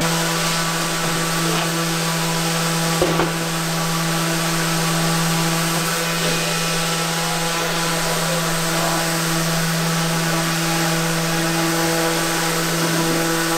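Random orbital sander with a dust-extraction hose running steadily over a plywood countertop, taking the high spots off to flatten the surface. A constant motor hum with sanding-pad rasp, and a single brief click about three seconds in.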